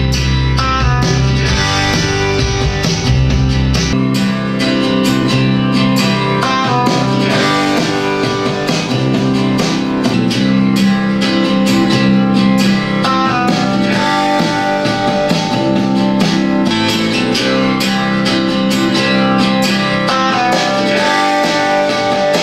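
Guitar-led music played back through loudspeakers and picked up by a microphone in the room. For the first four seconds or so the deep bass is full. After that the deep bass drops out, as the music comes from the small UE Roll Bluetooth speaker instead of the Creative T15 desktop speakers.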